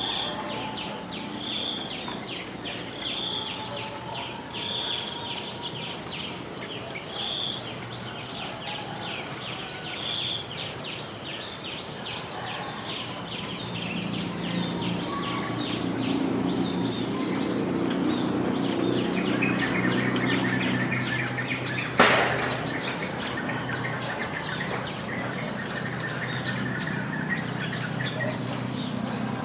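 Village ambience after rain: a bird repeats a short call about every second and a half over a dense, fast chirring of insects. A low rumble swells through the middle and fades, and one sharp knock comes about two-thirds of the way through.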